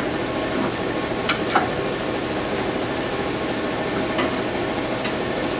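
A few light metallic clicks and knocks from hands working the slab saw's vise and carriage lock, over a steady mechanical hum and hiss.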